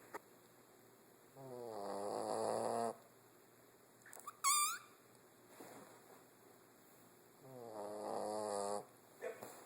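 Bull terrier snoring in its sleep: two long snores about six seconds apart, each growing louder as it goes, with a short high squeak between them about halfway through.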